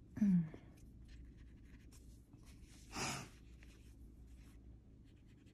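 Faint scratching and dabbing of a wet brush on paper, activating Derwent Inktense pencil colour with water. Near the start there is a short falling vocal sound, and about three seconds in a short hiss.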